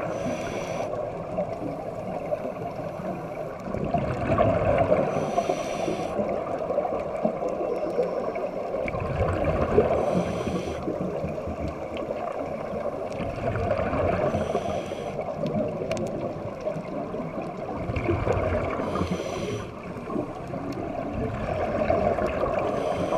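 Scuba diver breathing through a regulator underwater: a bubbling gurgle on each exhale and a short hiss on each inhale, about one breath every four to five seconds, heard through an underwater camera housing.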